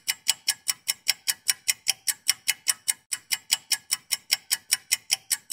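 Countdown-timer ticking sound effect: sharp, even ticks about five a second, with one brief skip about three seconds in.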